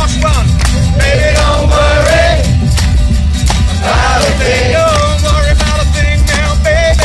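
Live acoustic music: acoustic guitars strummed in a steady rhythm while a man sings the melody.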